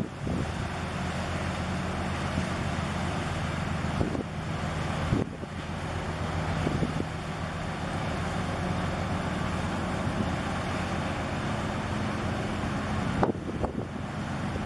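Steady low drone of a liquefied ethylene gas tanker's engine as the ship passes close, mixed with wind noise on the microphone, with a few brief bumps about four, five and thirteen seconds in.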